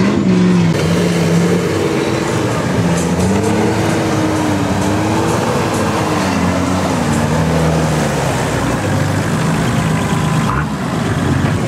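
Nissan Patrol 4x4's engine revving under load while climbing a steep loose dirt slope, its pitch rising and falling repeatedly with the throttle.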